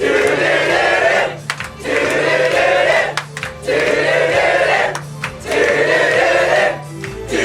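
A choir singing together in phrases of about a second and a half, with short breaks between them, over a backing track with sustained bass notes.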